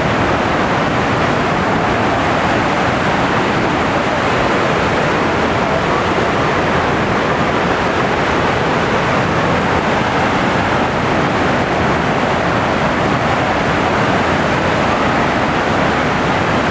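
Waterfall and river water rushing loudly and steadily, an even dense rush with no breaks.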